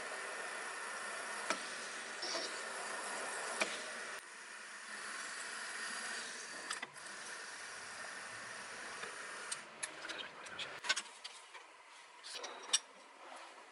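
Milling machine spindle running steadily as a countersink and then a twist drill cut into a metal ring, with a steady whine and cutting noise. In the last few seconds the running noise drops away and scattered sharp clicks and ticks are heard.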